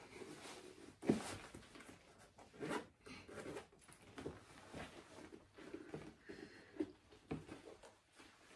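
Faint rustling and a few soft knocks of chunky boots being handled at floor level, the sharpest knock about a second in.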